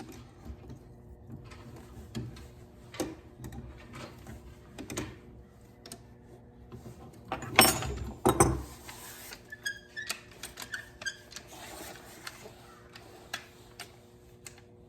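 Metal clicks and clinks of a pair of pruning shears being reassembled by hand, irregular and small, with two louder knocks about eight seconds in.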